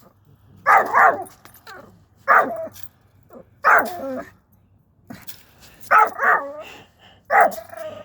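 A dog barking repeatedly: seven or so short, loud barks, some in quick pairs, with pauses of a second or so between groups.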